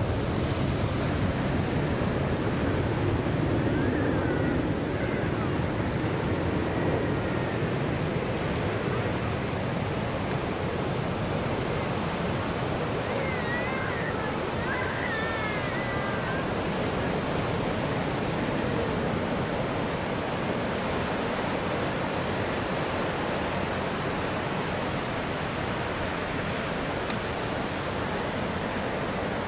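Ocean surf breaking on a beach: a steady rushing wash, a little louder in the first few seconds.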